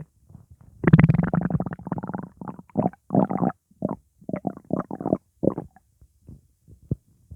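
A person's stomach and intestines gurgling from gas in an upset stomach. There is a long gurgle about a second in, then a run of short gurgles that thin out and fade toward the end.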